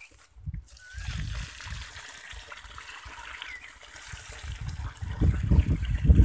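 Water pouring from a plastic can with a spout onto dry soil at the base of a young shrub. It starts as a trickle about a second in and grows louder near the end as the water splashes into a forming puddle.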